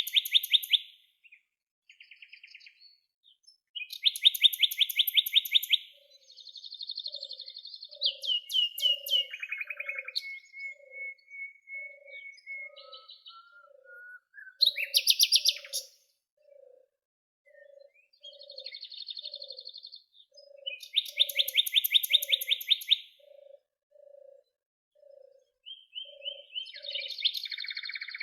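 Songbirds singing in turns: rapid high trills and buzzy chirping phrases a few seconds apart, with a thin whistled note between them. A soft low note repeats about once a second beneath the song from about six seconds in until near the end.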